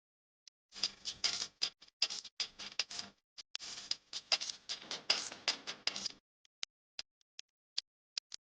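A dense, irregular run of sharp clicks and scratching that lasts about five seconds, with scattered single ticks before and after it.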